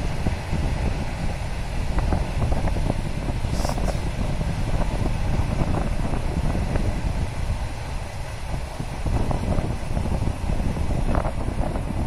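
Storm wind buffeting the microphone: a steady low, noisy rush that swells and dips, with a brief high click about four seconds in.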